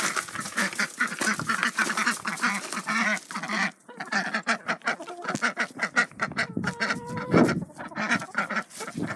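Domestic ducks quacking rapidly and continuously in an excited chatter, with one brief held call about seven seconds in.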